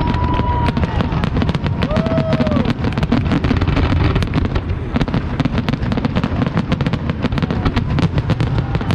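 Fireworks going off in a dense, continuous barrage: many sharp bangs and crackles a second over a steady low rumble. Two short whistling tones rise and fall, one at the start and one about two seconds in.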